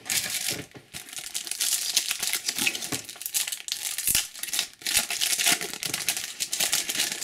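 Foil trading-card booster pack wrapper crinkling and crackling irregularly as it is handled and torn open.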